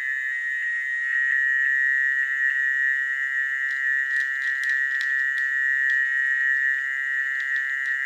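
Chorus of many frogs calling after rain: a dense, steady, high-pitched trilling drone. A few sharp clicks are scattered through it.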